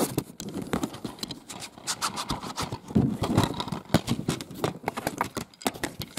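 Handling noise from a plastic DVD keep case being opened and the disc taken out: a run of irregular clicks, taps and knocks, thickest about three seconds in.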